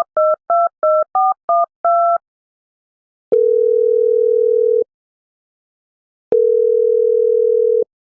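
Phone keypad dialing tones, about eight quick two-note beeps, followed by the ringback tone of the call going through: a steady low tone lasting about a second and a half, heard twice, three seconds apart.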